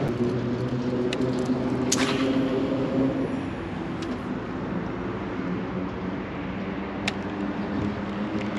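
A vehicle engine humming steadily, louder for the first three seconds or so and then fading, with a few sharp clicks heard over it.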